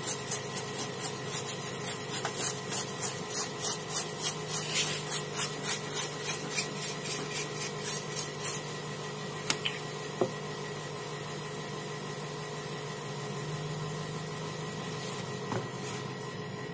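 Paintbrush scrubbing petrol over the solder side of a TV circuit board to clean off corrosion, in quick rhythmic strokes about three a second. The strokes stop about eight seconds in, leaving a faint steady hum and a couple of light taps.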